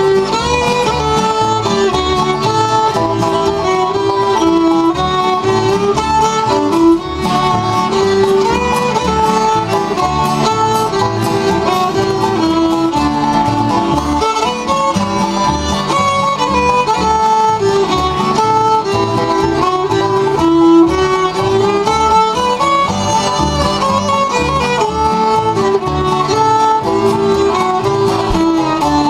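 Bluegrass band playing an instrumental break: the fiddle carries the melody over strummed acoustic guitars, banjo and a plucked upright double bass keeping a steady beat.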